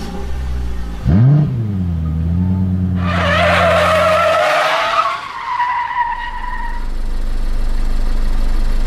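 Car sound effect: an engine revs up sharply about a second in and settles into a steady drone, then tyres screech for about four seconds from about three seconds in, dying away over a low engine rumble.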